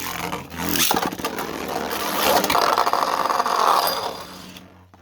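Beyblade spinning tops launched into a plastic stadium. About a second in they start with a sudden clatter, then spin and grind against each other with a dense rattling scrape that dies away near the end.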